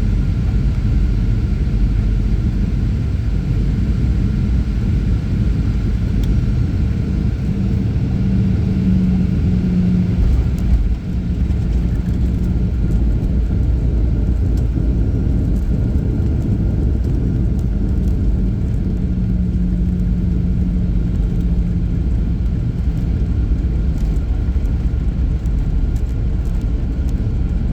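Cabin noise inside a Boeing 737 airliner on approach and landing: a steady rumble of engines and rushing air, with a faint hum that swells and fades. There is a brief bump about eleven seconds in.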